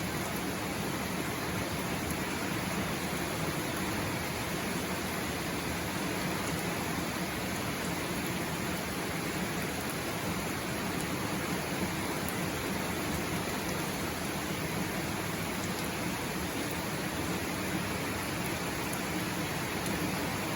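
Steady rain falling, an even continuous hiss with no let-up.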